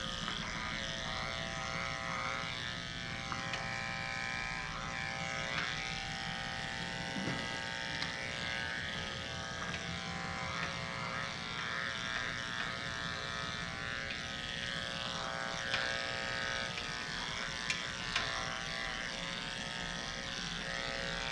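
Electric dog grooming clippers running with a steady buzz, shaving off a puppy's severely matted coat.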